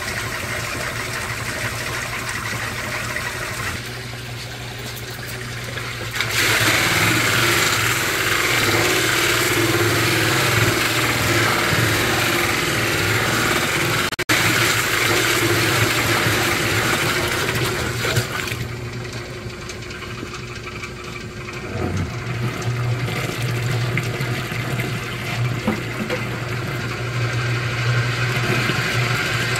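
Motor-driven stirrer running with a steady low hum as it churns ore slurry in a plastic barrel. From about six seconds in until about eighteen seconds, a bucket of water pours into the barrel with a louder, steady splashing rush.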